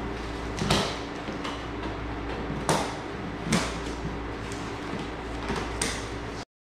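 Handling of a large cardboard shipping box and its plastic strapping: scraping and rustling, with four louder sharp scrapes or snaps, over a steady low hum. The sound cuts off suddenly near the end.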